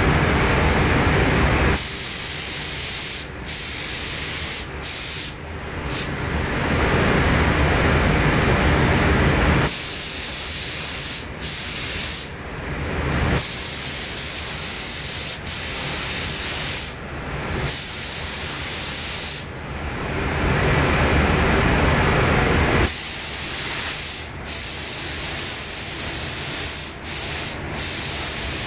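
Paint spray gun hissing in short spells as the trigger is pulled and released, spraying a coat of paint. Three times a louder, deeper rush of air takes over for a few seconds.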